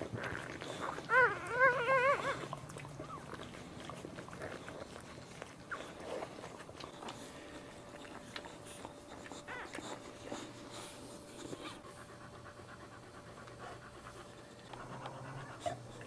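Newborn boxer puppies squealing: a quick run of short, wavering high cries about a second in, and one more brief cry near the end. In between, softer wet licking and panting from the boxer mother as she cleans them.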